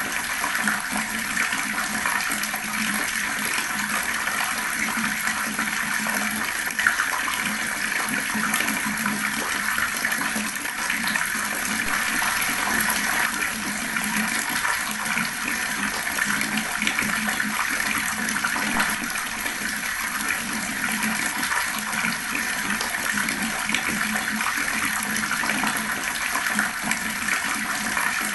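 Fast-flowing water running steadily, with one brief sharp tick about seven seconds in.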